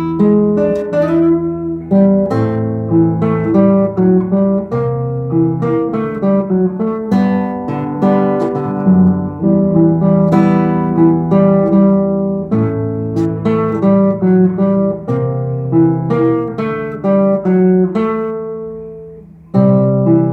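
Acoustic guitar playing, strummed and picked chords with no voice. The playing dies away near the end, and a strong chord sounds about a second before the end.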